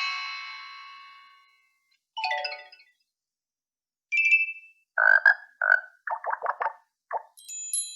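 Redmi Note 9 preset notification tones previewed one after another, with silent gaps between them. A ringing chime fades over about a second and a half, then come a short jingle, a brief two-note blip, a quick run of lower warbling pulses, and a high chime near the end.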